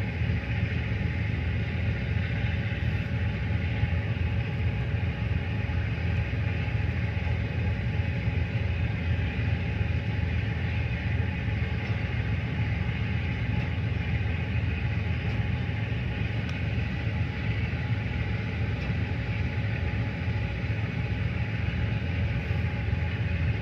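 A tugboat's engine running in a steady low rumble, unchanging throughout.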